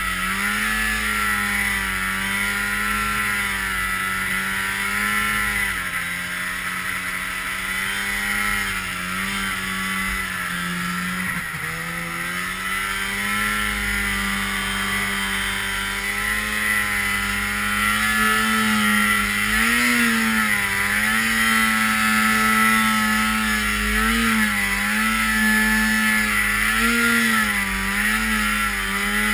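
Snowmobile engine running under steady throttle while riding through deep snow, its pitch dipping and recovering a couple of times and then blipping up in several quick throttle stabs in the second half.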